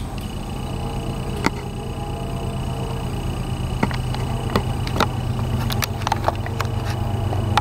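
Low, steady engine rumble of an approaching diesel locomotive, growing gradually louder, with a thin high whine held over it. Several sharp clicks are scattered through the middle.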